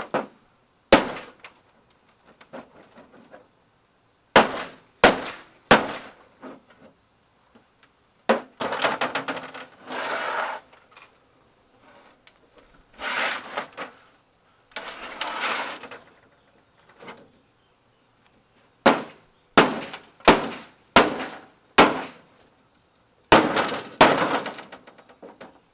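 Hammer blows on a stuck screw in a CRT TV's plastic back cabinet, knocking the screw loose. Sharp cracking strikes come singly at first, then in a quick run of about eight near the end. Three longer noisy stretches of a second or two fall in between.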